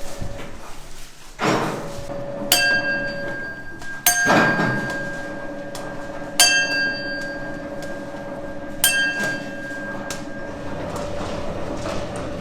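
Three sharp clinks that ring on briefly, two to four seconds apart, with two rustling swishes earlier and a faint steady hum underneath.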